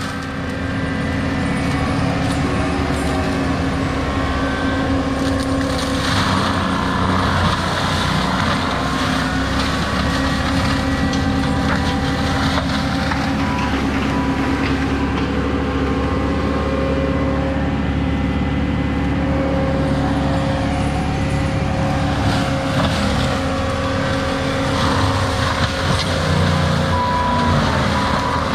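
Heavy diesel land-clearing machine running steadily under load, a constant drone with a steady hum, and noisier stretches about a fifth of the way in, near the middle and near the end.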